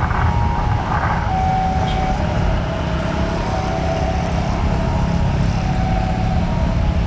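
Jet engines of an Airbus A330-900neo, Rolls-Royce Trent 7000 turbofans, running with a loud, steady rumble and a faint whine. A short higher beep repeats about every two seconds over it.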